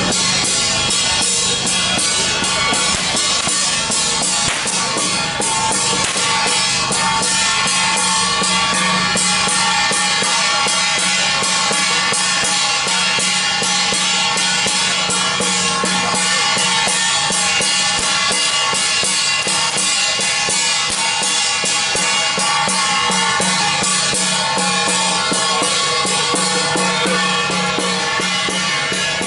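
Chinese temple-procession percussion: drums and cymbals beaten in a fast, unbroken rhythm, loud and even, over a steady metallic ringing.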